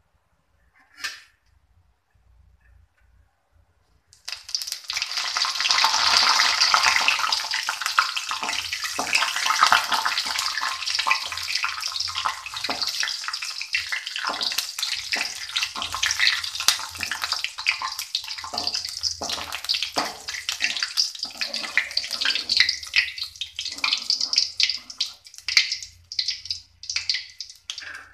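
Cashews frying in hot oil in a kadai: a loud sizzle starts suddenly about four seconds in and breaks into separate crackles near the end, with a slotted spoon stirring them.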